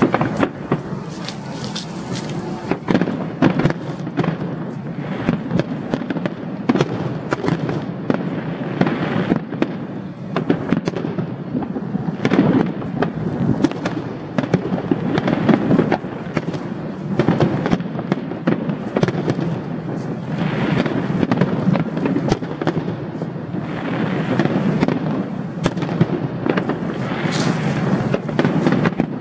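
Fireworks display: a dense, unbroken barrage of shells bursting, many bangs and crackles overlapping with no pause between them.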